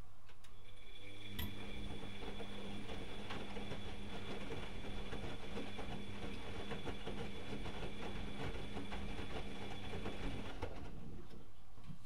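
Bauknecht WAK 6950 front-loading washing machine in its wash phase: the drum motor starts with a steady whine, turns the drum for about nine seconds with a rattling of the load and drum, then stops, over a low steady hum.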